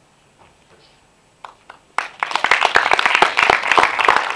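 An audience applauding, starting suddenly about two seconds in after a near-quiet pause with a few faint clicks.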